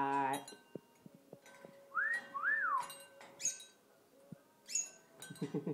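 A short spoken word at the start, then two quick whistles that each rise and fall, followed by a few bright clinks of a small bell on a cockatoo's hanging toy as the umbrella cockatoo knocks it about.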